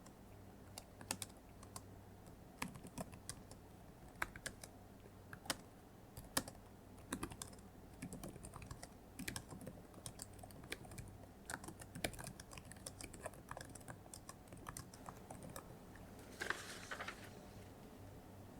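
Soft typing on a computer keyboard: irregular key clicks, several a second with short pauses. Near the end comes a brief rustling noise.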